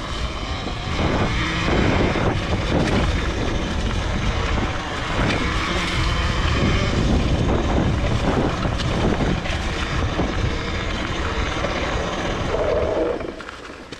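Wind rushing and buffeting over the microphone while riding a Talaria Sting R electric dirt bike, with road noise underneath. It dies away near the end as the bike slows to a stop.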